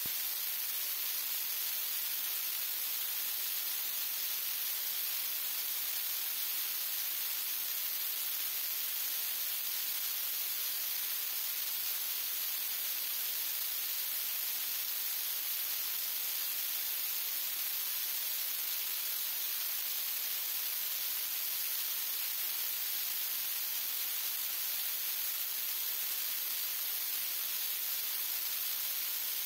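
Steady, even hiss with no other sound in it, the kind of noise a recording makes on its own.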